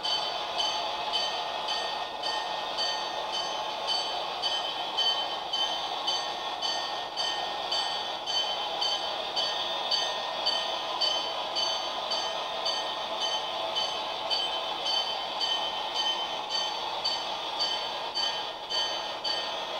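HO-scale model freight train rolling past on its track: wheels running on the rails with a steady rhythmic clicking and a high-pitched hum from the running gear.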